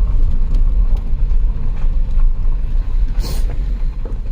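The 2008 Volkswagen Passat's 3.6-litre V6 running as the car is driven, a steady low rumble. The engine is running only on low-side fuel pressure, with no high-pressure rail pressure. A short hiss comes about three seconds in.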